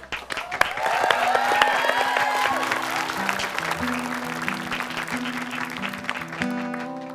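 Applause that slowly fades, with a few gliding calls in the first seconds. Acoustic guitar picking comes in about two and a half seconds in: a steady pattern of plucked notes, the intro to the duo's song.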